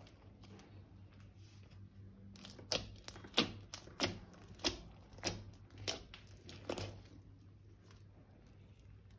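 A run of about eight sharp crackling clicks, roughly one every half second, from slime and balloon materials being handled and worked.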